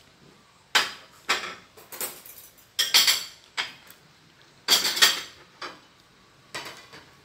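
Dishes and cutlery clinking and clattering as they are handled on a table and tray, in a string of sharp knocks, loudest a few seconds in.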